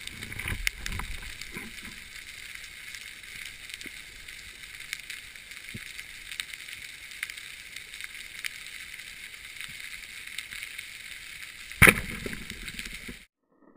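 Underwater ambience picked up by an action camera in its waterproof housing: a steady muffled hiss with many faint scattered clicks. A single sharp knock comes near the end, and the sound cuts off abruptly just after it.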